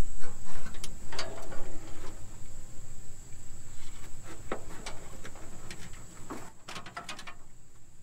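Irregular rustling, knocks and clicks of hands working, likely wire bundles being handled and pushed through under the truck's dash, over a steady high-pitched whine. Louder at first, easing off later.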